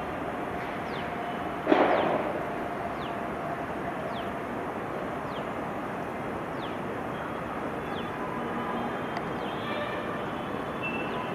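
Steady rolling noise of a passing train, with one sharp bang about two seconds in that rings briefly. Faint short falling chirps recur about once a second over it.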